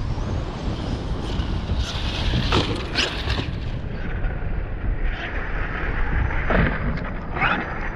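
Strong wind buffeting the microphone over a large electric RC car running on sand, its motor and tyres surging louder twice.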